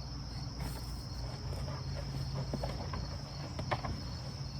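Crickets chirping steadily, with a few light clicks and rustles of parts and packaging being handled.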